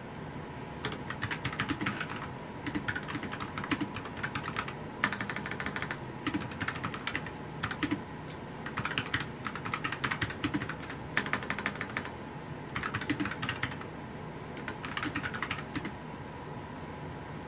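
Fast typing on a compact backlit computer keyboard, in about eight bursts of rapid key clicks with short pauses between them.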